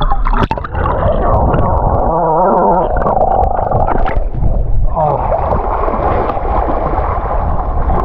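Sea water sloshing and gurgling around an action camera held at the surface, muffled as the camera dips in and out of the water.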